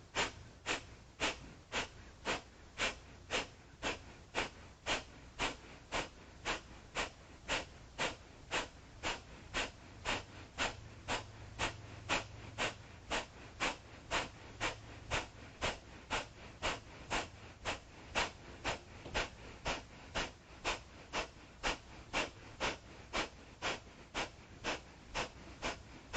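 Kapalabhati (Breath of Fire) breathing: short, forceful exhalations snorted out through the nose in a steady rhythm of about two a second, each followed by a passive inhale.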